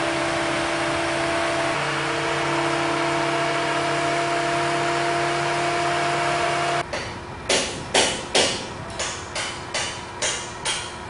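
A heavy engine runs steadily, most likely the crane's. Just before seven seconds in it gives way to hammer blows on structural steel: about nine sharp, ringing strikes in three and a half seconds as ironworkers drive drift pins and bolts into the sculpture's bolt holes.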